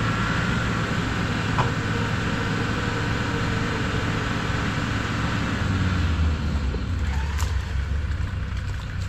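Off-road vehicle's engine running steadily, its note turning deeper and heavier about six seconds in.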